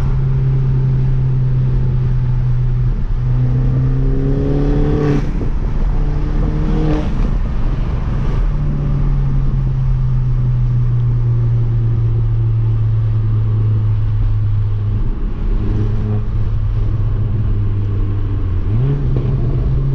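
Mini Cooper S car driving: a steady engine and road drone, with the engine note rising several times under acceleration in the first half, falling back about three quarters through and climbing again near the end.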